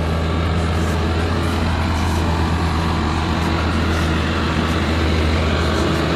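Freshly overhauled Dongfeng Cummins 6CTAA8.3 six-cylinder turbo diesel in a LiuGong grader, running steadily on its test run with an even low drone.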